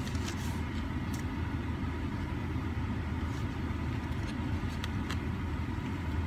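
Steady low rumble of a car idling, heard from inside the cabin, with a few faint light clicks from a cardboard food box being handled.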